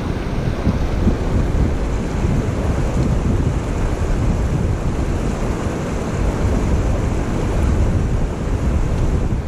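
Colorado River water rushing over boulders and through a rapid: a steady, loud rush with a deep rumble underneath.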